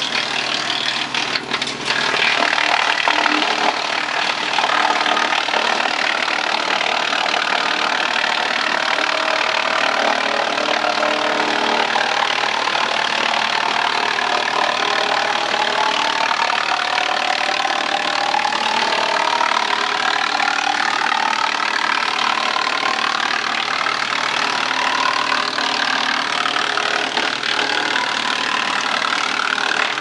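OX-8000 8-inch PTO-driven wood chipper running with its power-feed rollers pulling long branches in and the knives chipping them steadily. It gets louder about two seconds in as a branch bites, and a higher tone climbs slowly in pitch over the second half.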